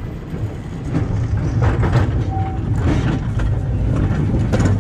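Vintage open streetcar rolling past close by on street rail, its steel wheels giving a low rumble that grows louder about a second in as the car arrives, with several sharp clacks.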